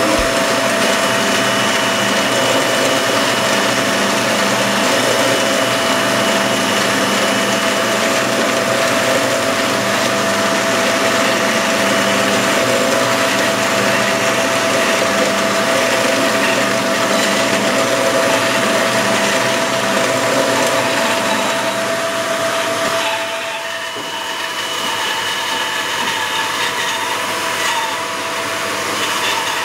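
Electric workshop machinery running steadily: a motor with a steady whine over a rushing noise. About three-quarters of the way through the sound dips and changes, and near the end a bandsaw is cutting a wooden board.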